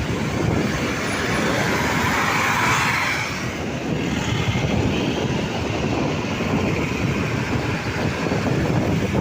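Steady engine and road noise of a moving bus, a dense rumble with no horn or voices over it.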